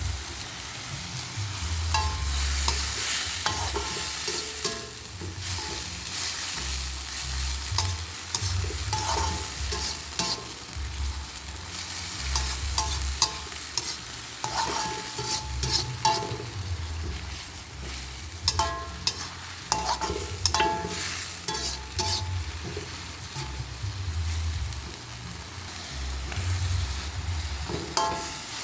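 Stir-fried water spinach (kangkung) sizzling in a pan while a spatula stirs it, scraping and knocking against the pan at irregular intervals, some knocks ringing briefly.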